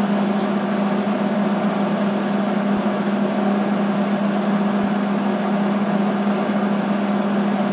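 Steady machine hum with a strong low drone, unchanging throughout.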